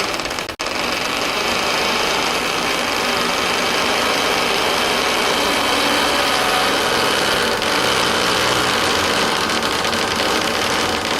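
Door hinges creaking as a heavy door swings open slowly: a creak that falls in pitch, breaks off for a moment, then goes on as one long, rough, steady creak.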